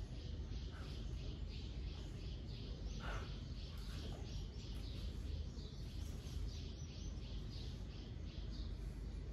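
A small bird chirping over and over, about three short high chirps a second, over a steady low rumble.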